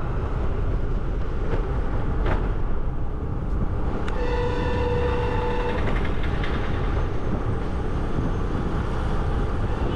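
Steady wind and road rumble of a moving scooter ride. About four seconds in, a vehicle horn sounds once, a steady tone held for about a second and a half.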